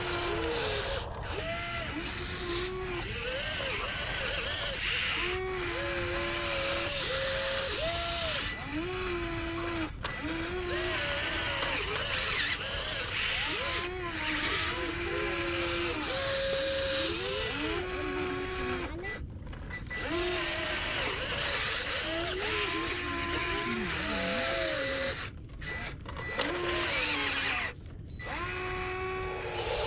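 Drive motors of an RC model Volvo EC160E excavator whining while it works, the pitch stepping up, holding and dropping every second or so as the arm, bucket and tracks move. The whine cuts out briefly a few times near the end.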